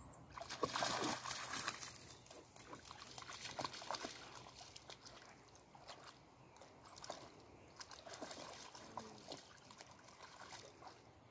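A dog wading through shallow water, its legs splashing and sloshing irregularly with each step. The splashing is loudest in the first couple of seconds.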